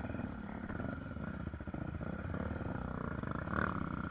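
Honda XR250 Tornado's single-cylinder four-stroke engine, kitted to 280cc with an aftermarket exhaust, running steadily as the bike is ridden slowly.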